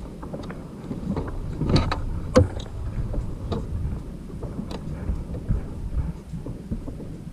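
Knocks and thumps from gear being handled on a plastic fishing kayak, the two loudest about two seconds in, over a constant low rumble.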